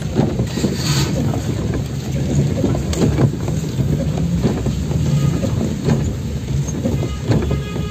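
Car engine and road noise heard from inside the cabin while driving, a steady low hum with a few short knocks and rattles.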